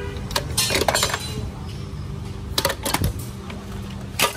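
Used metal-bodied power tools, mostly angle grinders, clinking and knocking against one another as they are shifted by hand in a heap. There are a few separate clanks, the loudest about four seconds in, over a steady low hum.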